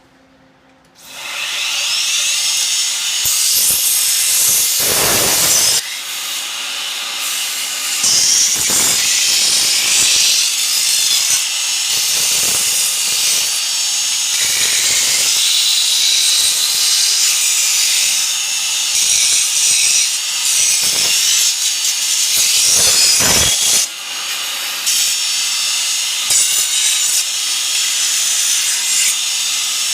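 2x72 belt grinder running, its abrasive belt grinding the edge of a plasma-cut, rolled steel plate to deburr it. A loud, steady grinding rasp starts about a second in, with brief dips about six and twenty-four seconds in.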